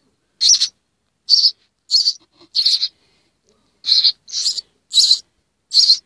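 Hungry nestling birds begging for food with short, harsh calls, about nine of them, each a fraction of a second long, with a pause in the middle.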